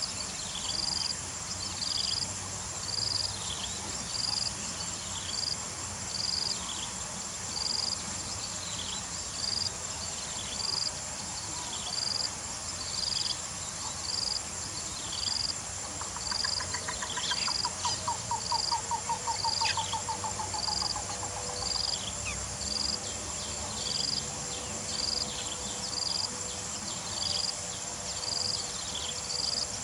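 Outdoor chorus of insects: a steady high-pitched trill with a short high chirp repeating about once a second. Around the middle comes a quick run of pulsed, bubbling notes that fall in pitch over several seconds.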